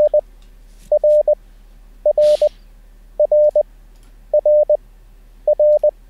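Morse code letter R, di-dah-dit, played over and over as a steady 600 Hz tone by the LCWO online Morse trainer at 20 wpm character speed. Each group is a short, a long and a short beep, and a group repeats a little faster than once a second.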